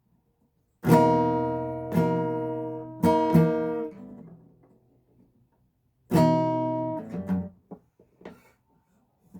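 Acoustic guitar strummed: four chord strums that ring and fade, the last two close together. After a pause of about two seconds come three more strums, then a few faint taps near the end.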